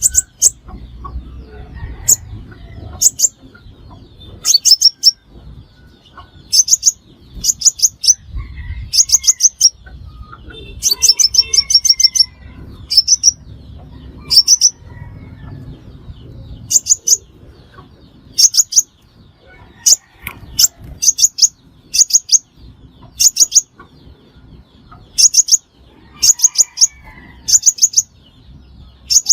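A sunbird calling: short clusters of three or four rapid, very high, thin notes, repeated about every second or two.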